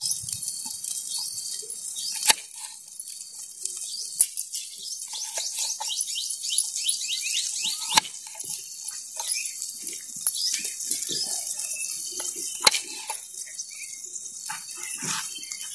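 Knife cutting eggplant into chunks on a wooden chopping board: soft slicing and handling sounds with a sharp knock now and then as the blade meets the board.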